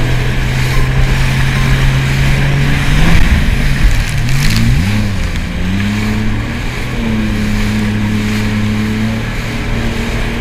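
Jet ski engine running at speed, with the hiss of water spray and wind. About three seconds in, the engine note drops and climbs back up as the throttle is eased off and opened again; then it holds steady.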